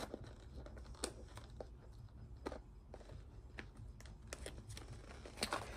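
Faint, scattered clicks and crinkles of packaging being handled and opened by hand, with a few sharper snaps.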